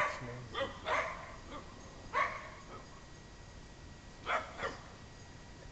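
Small dog barking at a deer across a wire fence: about six short, sharp barks, irregularly spaced, some in quick pairs.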